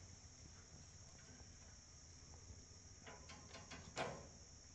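Near silence: a faint, steady insect chorus in the woods, with a few light clicks and one short knock about four seconds in.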